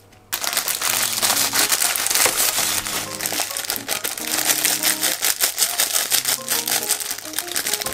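A plastic bag of enoki mushrooms being squeezed and handled, crinkling loudly with many small crackles. It starts a moment in, over background music.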